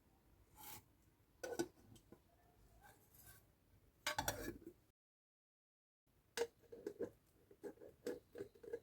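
Small hard plastic candy packaging and toys being handled: scattered faint clicks and taps, a busier cluster of clicks about four seconds in, then a second of dead silence, then a run of light taps about three a second.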